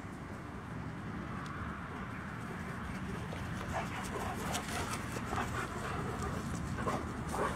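German Shepherd dogs running up through grass, with short dog sounds repeating from about halfway through over a steady hiss.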